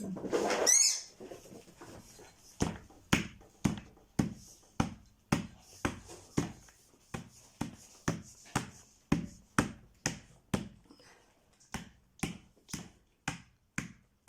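A brief high squeal in the first second, then a steady run of sharp knocks, about two a second, as pieces of a flat-pack shelf unit are knocked together during assembly.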